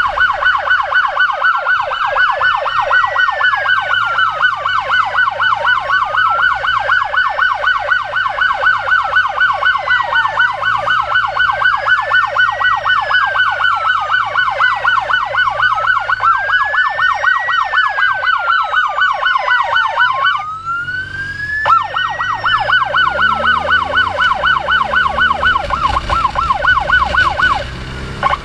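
Medic motorcycle's electronic siren running continuously, sounding a fast warble together with a slow wail that rises and falls about every five seconds. It cuts out for a second or two about two-thirds of the way through, then resumes.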